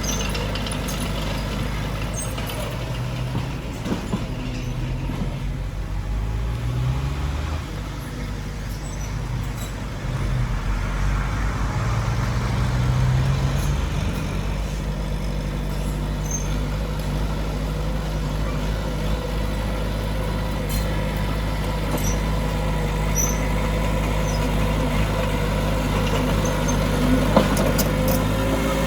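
Heavy diesel earthmoving machinery running. The engine pitch rises and falls several times in the first half as it works under load, then holds steady.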